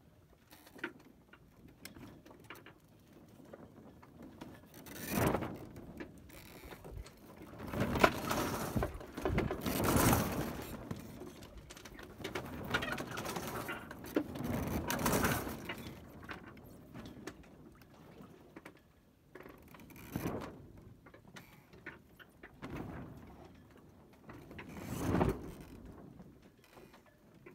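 Sea water washing along the hull of a sailboat under sail: soft swishes that swell and fade every few seconds, the strongest about eight to ten seconds in and another near the end.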